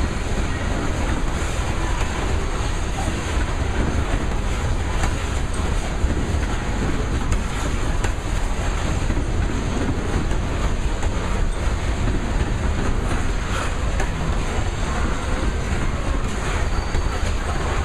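Loaded coal hopper cars rolling past at steady speed: a continuous heavy rumble of steel wheels on rail, with clicking as the wheels cross rail joints.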